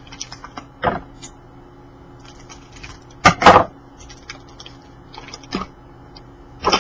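Trading cards being handled and flipped through: scattered soft card slides and clicks, with one louder rustling scrape about three seconds in.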